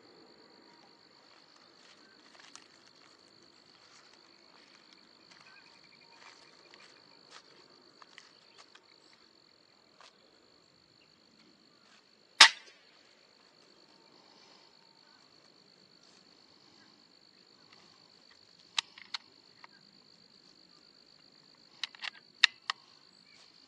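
A single sharp shot from an Umarex Gauntlet PCP air rifle about halfway through, over a steady high-pitched drone of insects. A few smaller sharp clicks follow later, in two short clusters.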